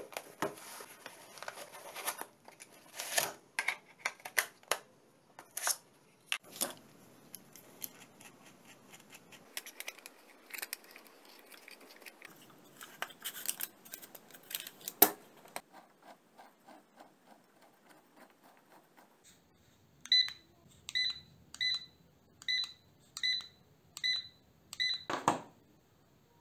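Hands handling a Rokodil Ray Pro laser level and its fabric carry case: scattered clicks, knocks and rustling, with one sharp knock about fifteen seconds in. Then the laser level beeps, a steady run of short beeps at the same pitch, about two a second for some five seconds, ending with a knock.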